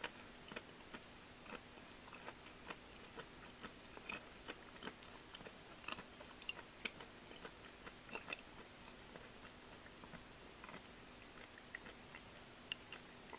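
Quiet close-up eating sounds: irregular small clicks and crunches of crisp Star of David okra being chewed and picked up with chopsticks. A faint high chirp repeats at an even pace underneath.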